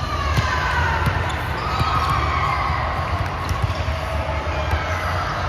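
Indoor volleyball court sounds in a large hall: scattered sharp knocks of a ball being hit and bouncing, over a steady low hum, with faint gliding squeaks or distant calls.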